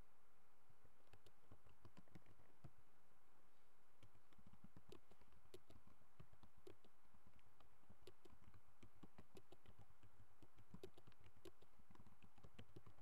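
Faint typing on a computer keyboard: a run of irregular key clicks throughout.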